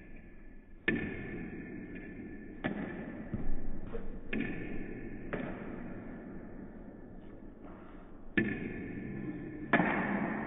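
Table tennis ball being smashed in a rally: sharp clacks of the celluloid ball off paddles and the table top, about eight in all at uneven spacing, each with a short echo.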